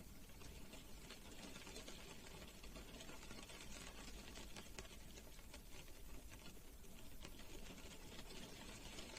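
Rain falling on a car, heard from inside the cabin: a steady, faint patter of many small drops tapping on the roof and glass, over a low steady hum.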